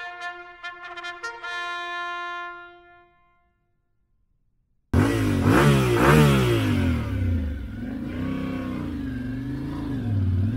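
Trumpet music fades out over the first three seconds, followed by a moment of silence. About five seconds in, a motorcycle engine cuts in loud and revs up and down.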